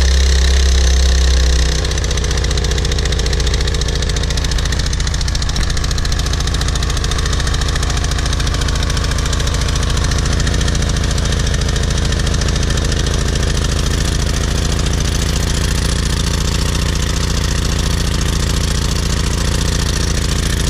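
Briggs & Stratton 190cc pressure-washer engine running steadily just after starting, now that its clogged carburetor jet has been cleaned. It is louder for about the first two seconds, then settles into an even run.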